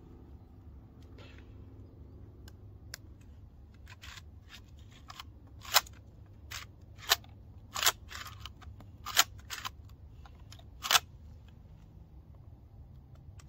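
Sharp metallic clicks and clacks from a shotgun that will not fire as its action is worked and checked: a scatter of small clicks with about five loud ones between about four and eleven seconds in.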